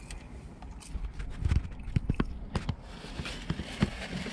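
Eating and handling food: a run of irregular soft clicks and knocks, then a paper napkin rustling over the last second or so.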